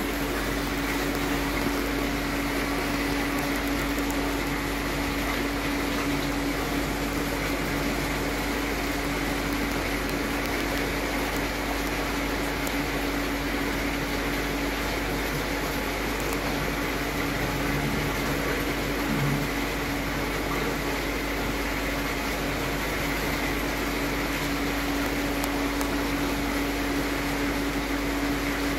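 Steady electric hum with a constant mid-pitched tone over a hiss of moving water, from aquarium pumps and filtration running.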